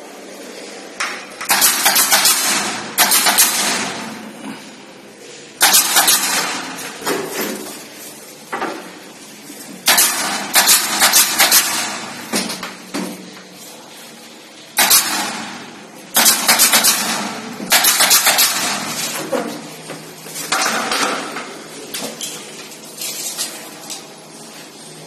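Repeated bursts of rapid sharp clicking and clatter during installation of plastic bathroom ceiling panels, each burst lasting up to about a second and a half with pauses between.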